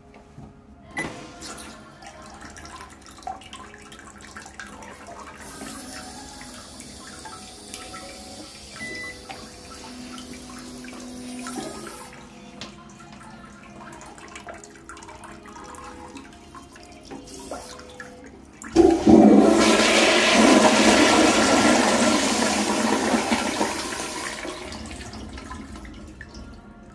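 A TOTO C48AS toilet flushing: a sudden loud rush of water about nineteen seconds in that fades over several seconds as the bowl swirls and refills. Before it there are quieter clicks and a faint hiss.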